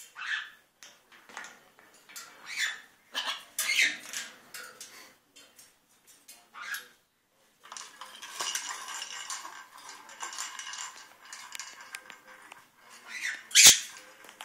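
Blue-and-gold macaw moving about its cage: scattered clinks, rattles and squeaks, then a stretch of wing flapping from about eight seconds in. A single sharp knock near the end is the loudest sound.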